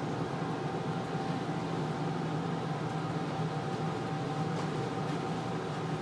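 Steady mechanical hum with a constant thin whine over it, unchanging throughout.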